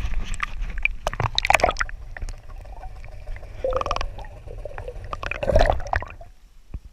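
Lake water splashing and gurgling in several surges as a hand-held fish is lowered into it and released, partly heard with the microphone under water. It goes quieter near the end.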